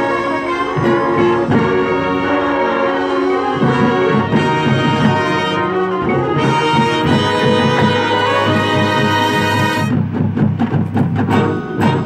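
Marching band playing its field show: the brass section holds loud chords over the front-ensemble percussion. About ten seconds in the music breaks into short, punched accented notes.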